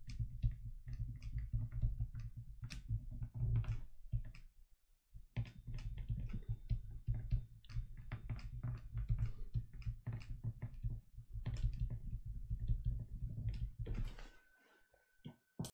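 Stylus tapping and scratching on a tablet screen during handwriting: many short, irregular clicks over a low steady hum, stopping shortly before the end.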